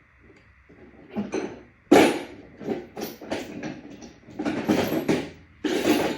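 Handling noise while an e-bike is being assembled: an irregular run of knocks, clunks and rustling clatter as parts are moved and fitted. The loudest knock comes about two seconds in, and a denser stretch of clatter follows near the end.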